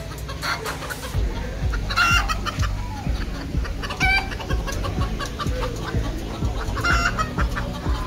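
Fowl calling with short clucking calls, one every couple of seconds, the strongest about two, four and seven seconds in.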